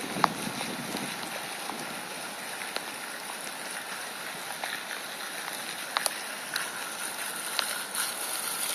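Steady hiss of rain with a few sharp ticks, the loudest just after the start and a pair around six seconds in.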